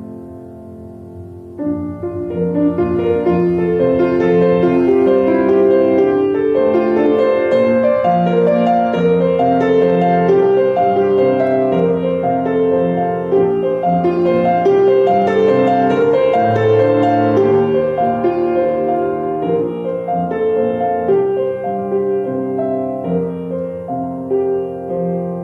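Solo piano playing a gentle, flowing piece, soft at first and fuller from about two seconds in.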